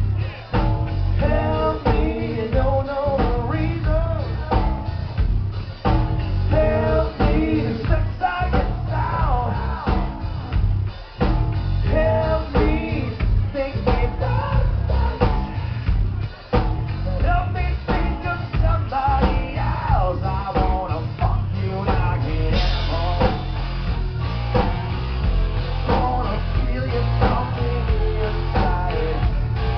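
A rock band playing loud and live: drum kit, guitar and a lead singer's voice through the PA.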